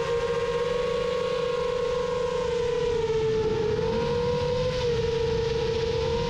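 Rajawali Fold 7 folding 7-inch FPV quadcopter's motors and propellers whining in flight at a steady pitch, which dips slightly about halfway through and rises back.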